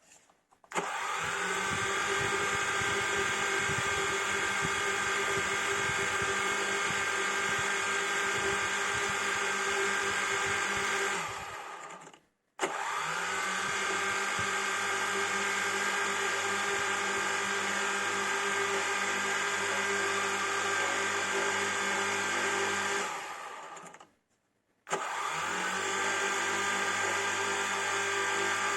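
Small quadcopter drone's electric motors and propellers running with a steady buzzing hum made of several whining tones. Each run begins with a quick rise in pitch and fades out after about 11 seconds; this happens twice, and a third run starts near the end.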